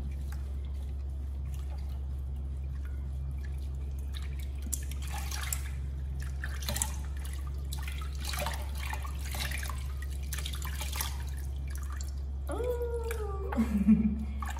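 Water splashing and dripping in a plastic basin as a baby monkey is washed by hand, over a steady low hum. A short voice sound comes near the end.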